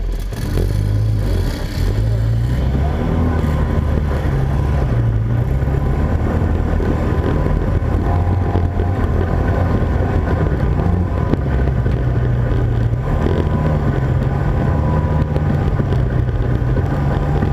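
Off-road vehicle's engine running as it pulls away on a dirt trail about a second in, then carries on under throttle, its note rising and falling with the throttle.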